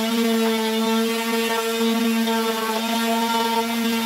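Corded electric sander running steadily against wood, a constant motor hum.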